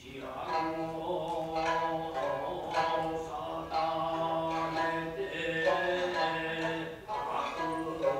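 Jōruri chanting for a puppet play: a chanter's drawn-out sung narration, holding long notes, with a few plucked shamisen notes.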